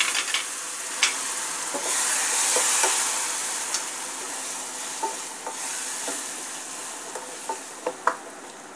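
Hot ghee with fried vermicelli and dry fruits sizzling hard as a ladle of boiling milk hits it; the sizzle slowly dies down. A few sharp taps and scrapes of a spatula on the metal saucepan break in, more of them near the end.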